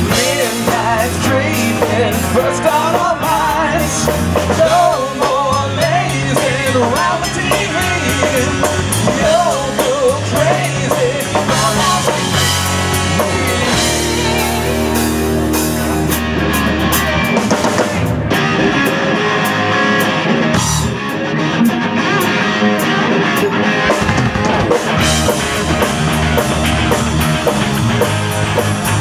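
Live rock band playing: electric guitar, bass guitar and drums. A wavering lead melody runs through the first half, with long held low notes about halfway through before the band changes about 18 seconds in.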